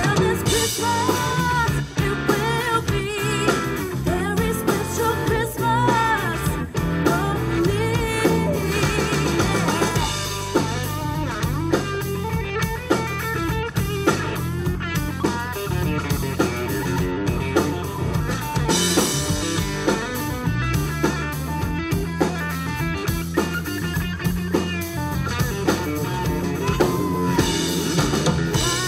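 Live band playing: a woman singing lead over electric guitar, bass guitar and a drum kit.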